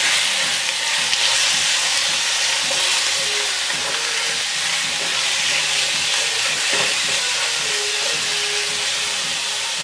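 Ground chicken and chopped garlic sizzling in hot oil in a pan as they are stirred with a silicone spoon, the meat starting to brown: a steady frying hiss.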